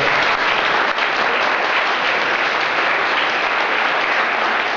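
Audience applauding at the end of a talk: dense, steady clapping from many people.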